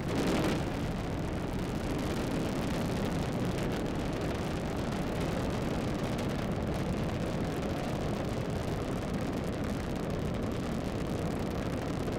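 Falcon 9 first stage's nine Merlin engines heard from the ground during ascent: a steady, deep rocket rumble with a brief louder swell about half a second in.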